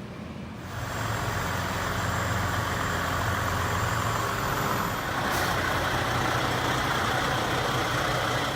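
Large truck engine running steadily at idle, starting about a second in.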